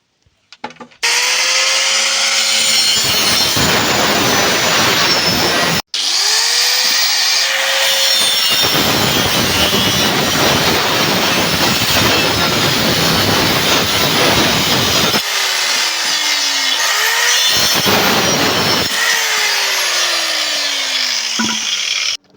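Power tool cutting, a continuous loud noise whose motor pitch sags and recovers under load, with a brief break about six seconds in.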